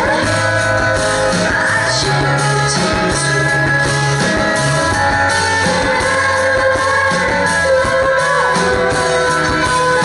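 Live rock band playing: a woman singing into a microphone over guitar and a steady low bass line.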